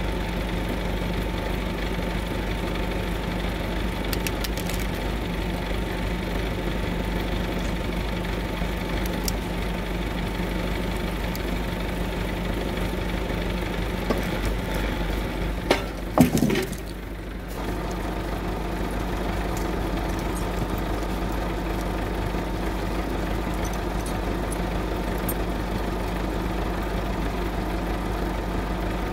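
Massey Ferguson 3070 tractor's diesel engine running steadily, driving the forestry cable winch that drags ash logs across the snow. About halfway through there is a short loud clatter with a falling whine, then the steady running resumes.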